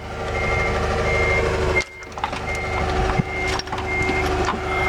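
Reverse alarm on a lifting machine beeping steadily, a high single tone about every 0.7 seconds, over the steady hum of its running motor, with a few light clanks.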